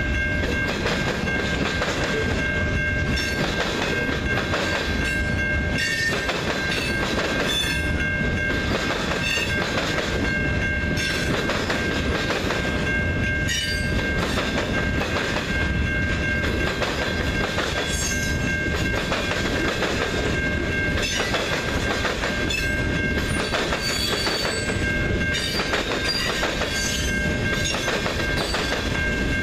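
Freight train's boxcars rolling past at close range, wheels clattering over the rail joints in a steady rush of noise, with a steady high-pitched ringing tone held over it.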